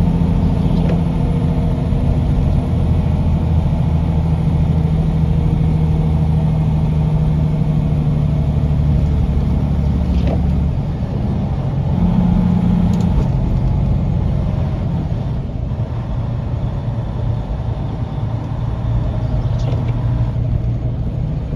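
Semi-truck engine and road noise heard from inside the cab while driving at highway speed: a steady low drone. The low engine tone drops away about halfway through, comes back for a moment, then stays softer.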